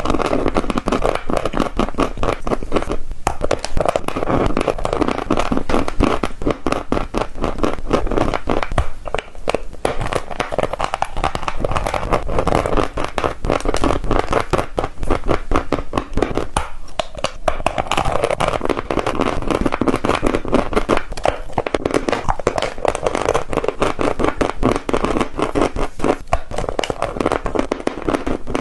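Gym chalk being bitten and chewed: dense, continuous dry crunching and crackling, with only a few brief breaks.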